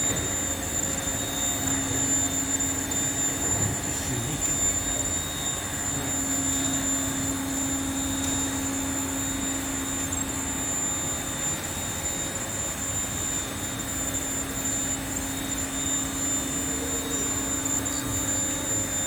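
A steady mechanical hum, with a low drone that swells and fades and a thin high whine held throughout.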